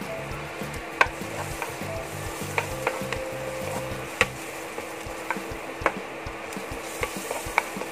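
Minced garlic sizzling in butter and coconut oil in a nonstick frying pan, with a spatula knocking and scraping against the pan about eight times as it is stirred.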